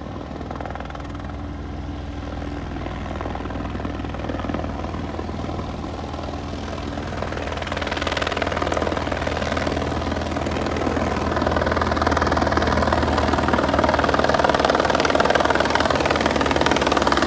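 Helicopter approaching to land, its rotor and engine drone growing steadily louder as it comes nearer, rising most sharply about halfway through and staying loud to the end.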